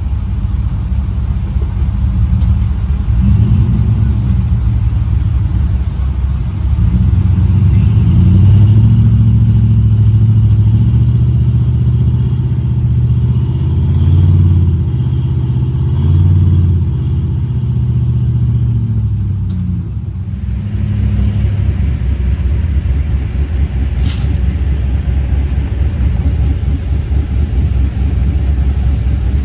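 Engine of a 1993 Toyota trail truck, one that has developed a rod knock, running and revving up and down repeatedly under load, easing off briefly about two-thirds through and then running steadier. A single sharp click sounds a few seconds later.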